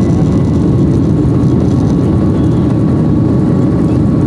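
Steady jet engine and airflow noise inside the cabin of a Boeing 737 airliner climbing after takeoff: a dense low rumble with a faint steady whine over it.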